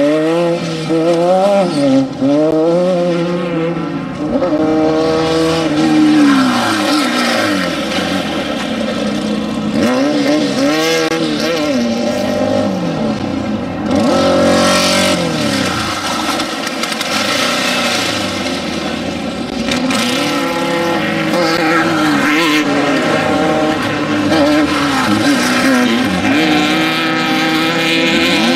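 Off-road desert race vehicles' engines revving hard as they accelerate, shift and pass, several engines overlapping. Their pitch rises and falls every second or two.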